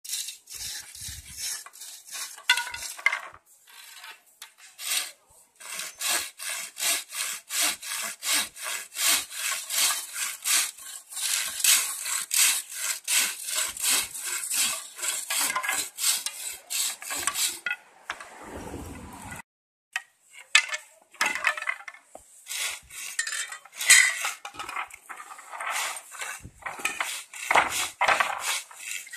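Hand saw cutting through bamboo poles in a steady rhythm of back-and-forth strokes, about two or three a second, with a short break a little past halfway before the strokes pick up again.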